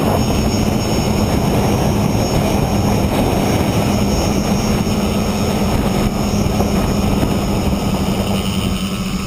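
Electric motors and propellers of a multirotor tricopter buzzing steadily, heard from its own onboard camera, with a steady low hum and thin high whines. Wind rushes on the microphone and eases near the end.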